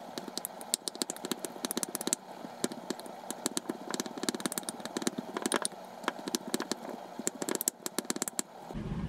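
Wooden spatula mashing cooked sweet potato in a glass mixing bowl: rapid, irregular taps and scrapes of the spatula against the glass, with soft squashing of the mash. Near the end it gives way to a steadier, lower sound.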